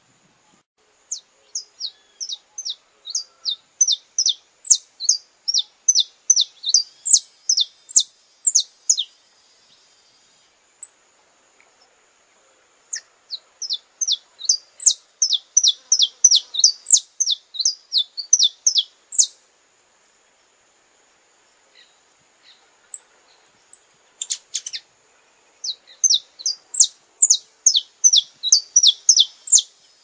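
Saffron finch singing: three long bouts of quick, sharp, repeated falling notes, about three a second, separated by pauses of a few seconds.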